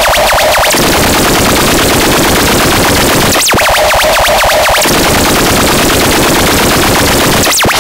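Harsh noise soundtrack: a loud, dense rattle like rapid machine-gun fire, laced with whistling pitch sweeps. The bass drops out at the start and again for over a second in the middle.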